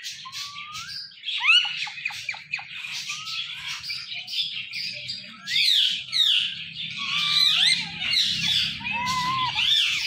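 Rose-ringed parakeet chirping, squawking and whistling in quick rising-and-falling calls, with louder bursts about a second and a half in and again from about five and a half seconds on.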